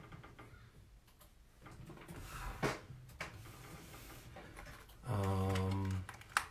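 Quiet rustling and a few light clicks as a man shifts and turns in a leather office chair, then a low, steady buzzing hum that starts and stops abruptly, lasting about a second near the end.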